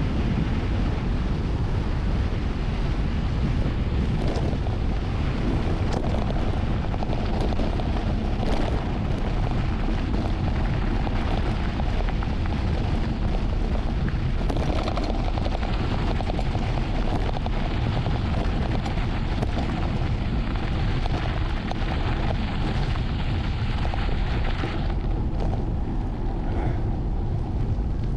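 Heavy wind buffeting on the camera's microphone during a fast mountain-bike descent on a dirt road, a steady low rumble with scattered knocks and rattles from the bike over rough ground.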